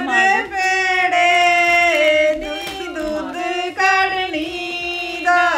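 A woman's voice singing a slow melody in long, drawn-out notes, in the manner of a Punjabi wedding song.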